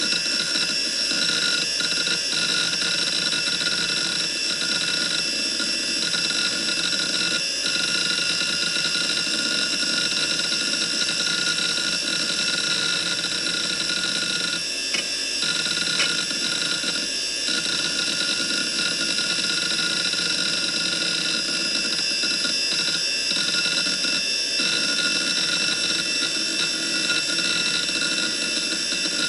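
Early-2000s 3.5-inch IDE hard drive spinning and working while Windows 2000 loads from it. A steady high whine and hiss from the spindle, changing briefly now and then as the heads seek, with a couple of faint clicks about halfway through.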